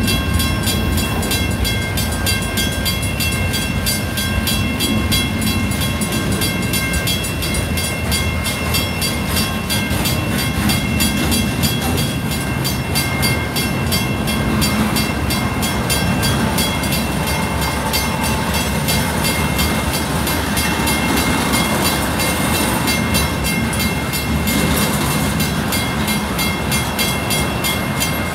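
Freight cars rolling steadily past a grade crossing: a continuous low rumble and clatter of steel wheels on rail. Over it the crossing bell rings rapidly without a break.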